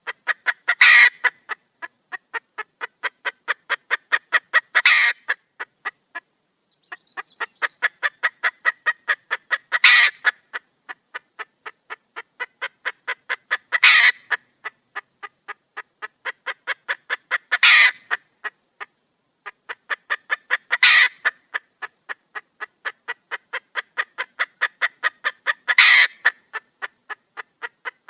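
Red junglefowl hen calling to attract a male: a fast run of short clucks, about seven a second, rising to a louder, longer squawk every four seconds or so. The clucking stops for about a second a quarter of the way in.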